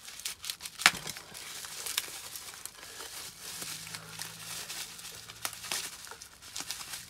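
Bubble wrap crinkling and crackling as it is cut open with a knife and pulled apart by hand, with irregular sharp clicks, the loudest about a second in.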